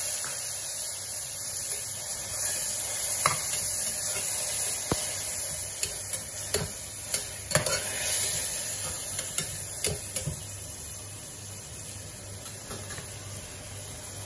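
Tomatoes, onion, ginger and garlic sizzling in butter in a pressure cooker, with the metal skimmer ladle scraping and knocking against the pot as it stirs. Most of the knocks fall between about 3 and 10 seconds in, and the sizzle eases near the end.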